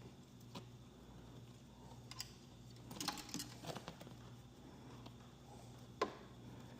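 Light scattered clicks and taps from hardware being handled, with a cluster about three seconds in and one sharper click about six seconds in, over a steady low hum.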